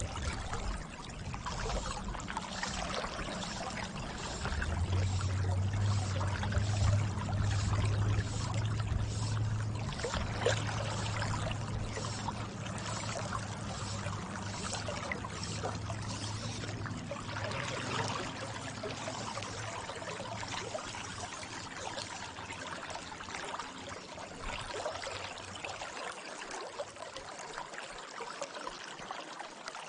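River water flowing and rippling steadily. A low rumble joins about five seconds in and fades away near the end.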